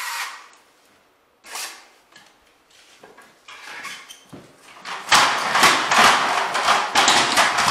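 A steel drywall taping knife scraping joint compound: short wipes near the start and about a second and a half in, then a few seconds of loud, rapid scraping strokes from about five seconds in.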